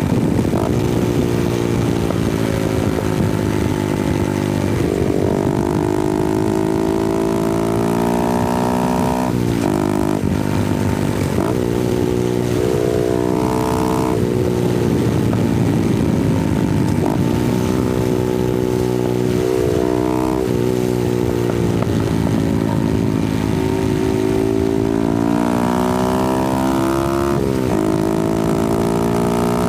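Honda Grom's 125cc single-cylinder four-stroke engine, close-miked, revving up and down under riding load. The note climbs in pitch, breaks off briefly at each gear change or throttle lift several times over, then climbs again.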